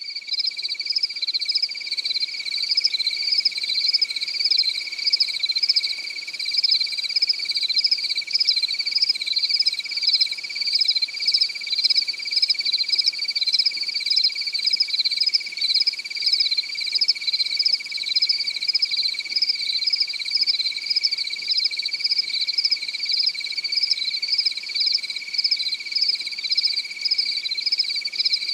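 A chorus of crickets chirping: one steady high trill runs unbroken beneath a higher, rapidly pulsing chirp.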